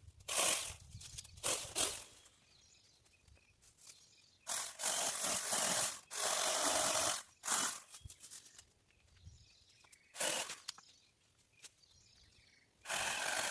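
Branch clearing: irregular bursts of rasping and leafy rustling as overhanging limbs are cut back, the longest two about a second each in the middle.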